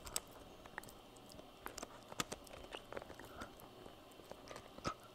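Shiba Inu puppy gnawing a hard chew held in a hand, its teeth clicking and scraping on it in faint, irregular ticks.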